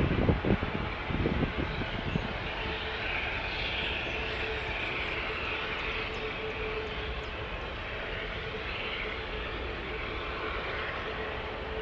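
Airbus A380 jet engines running at low power as the airliner taxis slowly: a steady jet whine over a broad rush, with a held tone in the middle range. For the first two seconds, low gusty thumps lie over it.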